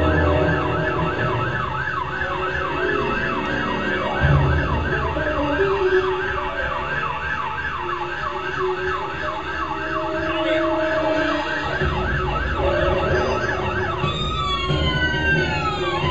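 Emergency vehicle siren in a fast yelp, its pitch rising and falling about three to four times a second over a low rumble. Near the end it changes to several slower, overlapping sweeping tones.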